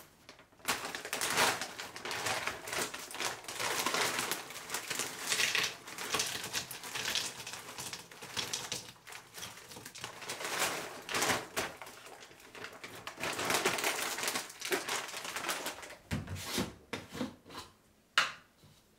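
Frozen berries clattering and rattling into a Ninja blender's plastic cup as they are poured from a plastic pouch, mixed with crinkling plastic bags. A single sharp knock near the end as the cup is moved on the counter.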